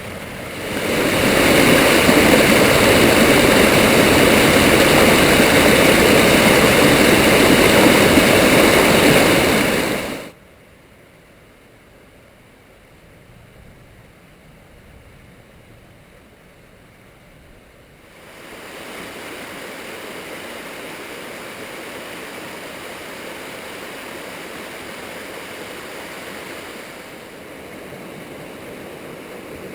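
Rushing water of a small mountain stream, loud and close at first. It drops suddenly to a faint rush about ten seconds in, then returns at a moderate level about eight seconds later.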